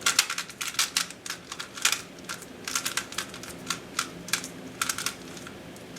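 GAN 356i Bluetooth smart speedcube being turned fast during a timed solve: quick runs of sharp plastic clicks and clacks as the layers are flicked through algorithms, with brief pauses between runs.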